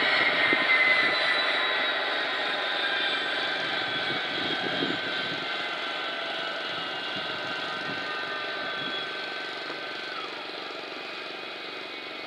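ATR 72-500's PW127 turboprop engines winding down after shutdown: a high turbine whine slowly falling in pitch and fading, with one tone dropping away near the end.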